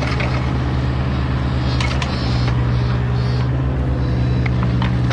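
Diesel engine of a mini excavator running steadily close by, a constant low hum, with a few light clanks.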